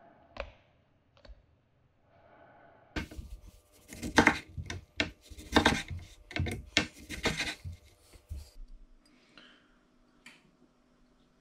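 Rasping scrapes and rubs of squid rings being worked around in a bowl of batter: an irregular run of about a dozen loud strokes starting about three seconds in and lasting some five seconds, after a couple of light clicks.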